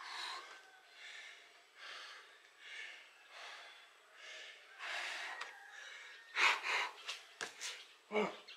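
Heavy breathing of a person out of breath from doing burpees, with hard exhales about once a second. The breaths grow louder and sharper about six and a half seconds in.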